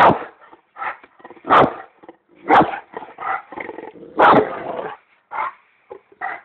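Large bullmastiff–Great Dane cross barking in a run of separate barks, about one or two a second, the loudest at the very start and about four seconds in.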